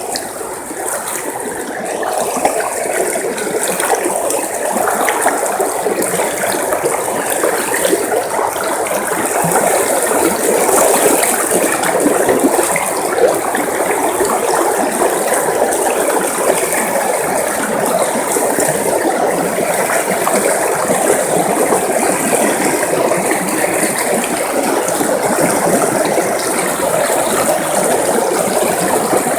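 River water flowing, a steady rush with a dense crackly texture, a little louder from about two seconds in.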